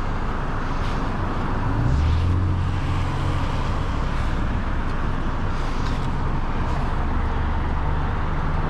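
Road traffic noise at a street intersection, with a car engine running at a steady low hum that settles in about two seconds in.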